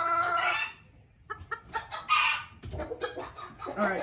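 A rooster crowing: one long held call that ends under a second in. After a short pause, chickens cluck and give short squawks.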